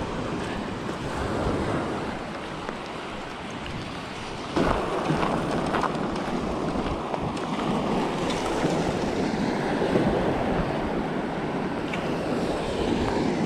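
Wind blowing across the microphone over small waves washing onto a sandy beach, a steady rushing noise that gets a little louder about four and a half seconds in.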